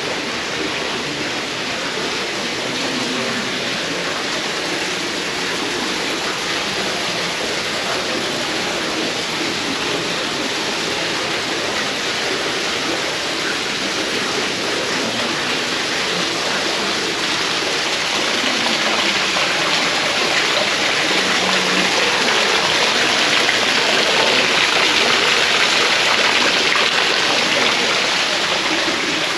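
Steady rush of running water, getting a little louder about two-thirds of the way in.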